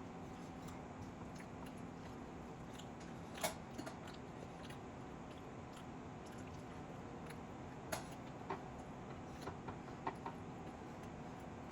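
Eating sounds from a person working through chicken biryani: scattered sharp mouth clicks and smacks over a steady low hiss, with a few clustered together in the second half.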